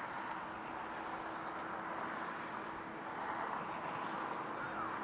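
Jet engines of a Boeing 737 taxiing: a steady rushing hiss with a constant low tone underneath.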